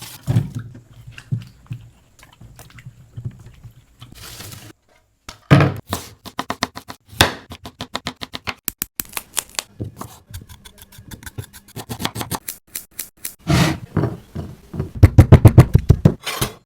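Knife chopping on a cutting board in quick runs of sharp strokes, the loudest run near the end, with some scraping.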